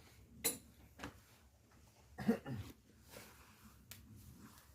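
Quiet room with a sharp click about half a second in, a softer knock about a second in, and a short murmured voice a little after two seconds.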